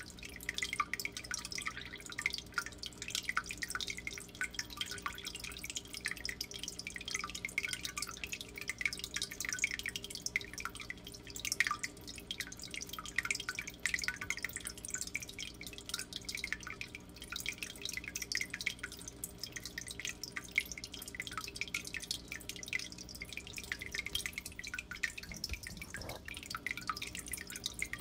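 Water trickling and dripping in a turtle tank: a continuous patter of quick, irregular little drops over a steady low hum.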